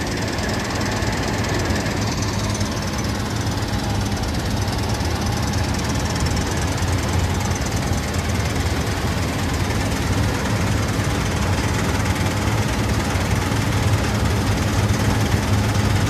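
New Holland CR9060 combine harvesting wheat at close range: the steady running din of its engine and header working through the crop, with a low steady hum underneath, growing a little louder near the end.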